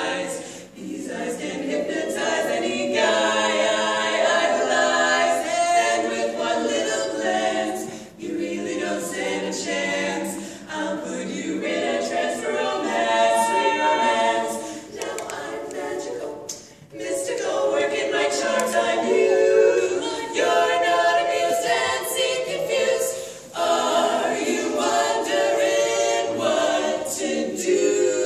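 Four women singing a cappella together, unaccompanied, in phrases broken by short breaths.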